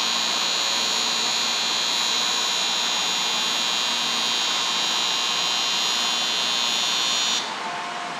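Station platform departure bell ringing continuously and evenly, a shrill electric ring that cuts off suddenly about seven seconds in.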